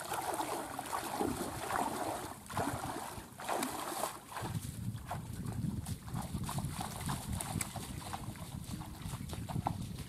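Feet wading and splashing through shallow, knee-deep floodwater, then softer splashy steps through wet, waterlogged grass. A steady low rumble comes in about four seconds in.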